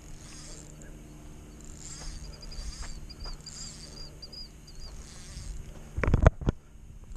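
Faint buzzing and high chirping of evening insects, with a loud bump about six seconds in.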